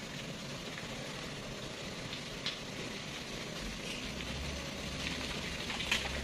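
Diesel engine of a heavily loaded Mitsubishi Fuso truck labouring up a slippery mud slope, heard at a distance as a steady noise, with a low rumble coming in about four seconds in.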